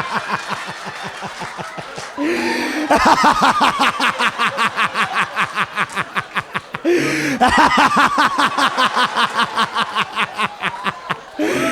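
A man's exaggerated, drawn-out impression of a laugh: rapid, even ha-ha-ha pulses, broken by two gasping in-breaths about two and seven seconds in. It mimics what he calls every white person's laugh.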